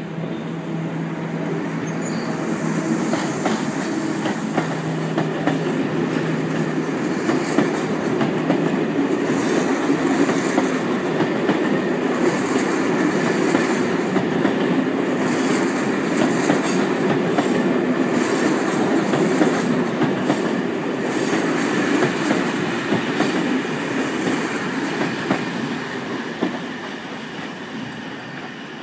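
TER passenger train rolling past on the curved tracks below: a steady rumble of wheels on rail with rapid clicks of the wheels over the rail joints. The noise builds over the first couple of seconds and fades near the end as the train draws away.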